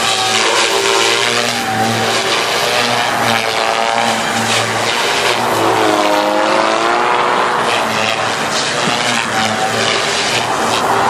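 Radio-controlled Devil 380 Fast helicopter flying aerobatics: a steady motor-and-rotor whine whose pitch keeps shifting with the manoeuvres, dipping low and climbing back about six seconds in.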